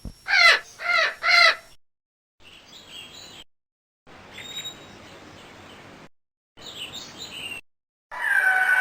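Birdsong from a string of short recordings cut together with silent gaps between them. Three loud wavering calls fall in pitch in the first two seconds, followed by three fainter stretches of scattered chirps. Near the end a loud, steady, held call begins.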